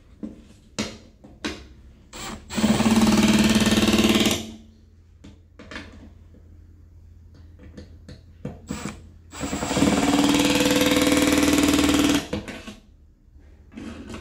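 Milwaukee cordless drill-driver running twice, each run about two seconds of steady motor whine, driving the mounting screws of a CT metering test block into a meter panel. Short clicks and knocks of handling come before and between the runs.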